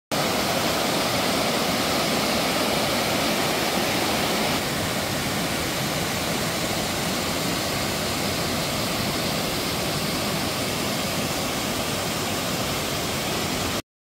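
Mountain stream rushing over rock cascades and a waterfall pouring into a plunge pool: a steady rush of water. The sound steps down slightly about four and a half seconds in and cuts off suddenly just before the end.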